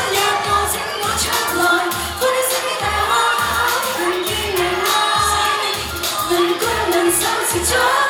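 Female voices singing a Cantopop song over a pop backing track, with a steady beat about twice a second.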